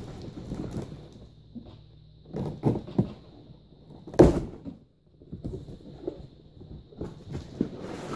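Cardboard box and packing being handled, with scattered rustles and knocks and one louder scrape or thump about four seconds in.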